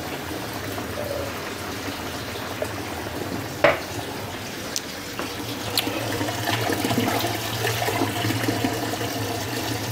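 Kitchen tap running into a stainless-steel bowl of thinly sliced potatoes, with hands swirling them to rinse out the starch; the water gets louder toward the second half. There is a single sharp knock about a third of the way in.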